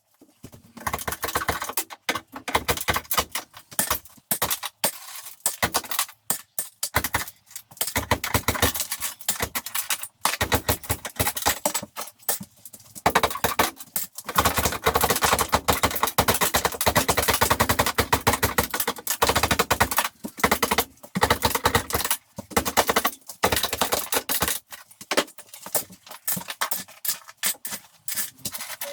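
A power saw cutting through a kitchen wall, running in bursts with short pauses and a fast chatter of strokes.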